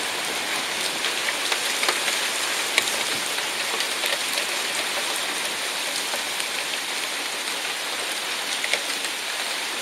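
Heavy rain pouring down steadily: a dense, even hiss with scattered ticks of single drops striking.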